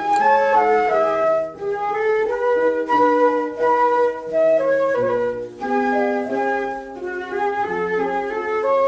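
Instrumental interlude of a children's song: a flute-like melody over chords and a bass line, no singing.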